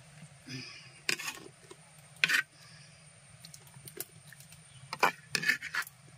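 A ladle stirring fish curry in an earthen clay pot and scooping fish pieces. Its bowl knocks sharply against the clay about six times, with soft scraping and stirring between the knocks.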